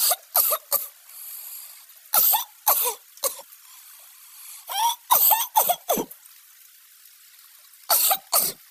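A person coughing in repeated fits of two to four coughs each, about a dozen coughs in all.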